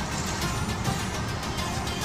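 Background music laid over the footage.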